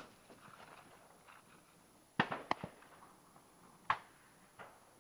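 A few sharp cracks or pops over a faint background: a quick pair a little past two seconds in, a loud single one near four seconds, and a softer one after it.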